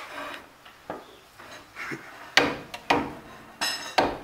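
Hammer blows on a car's front brake rotor, knocking it loose from the hub: faint clicks at first, then a run of sharp metal knocks from about halfway in, one with a brief ring.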